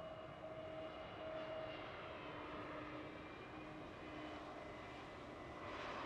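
The CFM LEAP-1A turbofans of an Airbus A320neo airliner are heard faintly on final approach, a steady jet drone with low whining tones. A short rush of noise comes just before the end.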